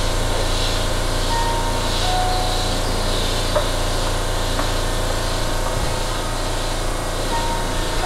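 Keihan electric train standing at an underground platform with its onboard equipment running, echoing off the station walls. It makes a steady low hum with a hiss above it that swells and fades.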